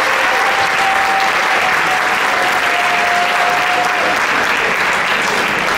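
Audience applauding and clapping steadily. A long, steady high note sounds over the clapping and stops about four seconds in.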